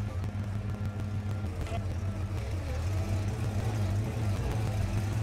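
Large forklift's engine running steadily as it drives slowly carrying the heavy milling machine, a low hum that grows slightly louder toward the end.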